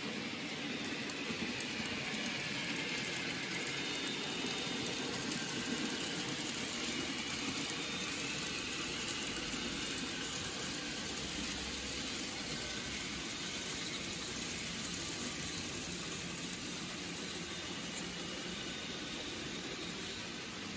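N gauge model train running on the layout track: a steady whirring and rolling hiss, with a faint high whine that rises and falls in the first few seconds.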